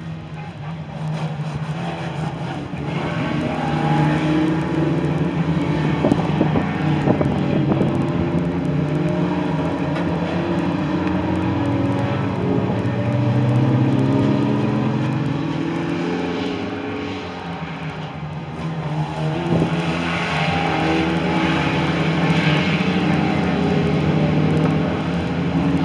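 Several saloon stock cars racing, their engines revving up and down at different pitches as the pack goes by. The sound builds, falls away for a couple of seconds about two thirds of the way through, then builds again.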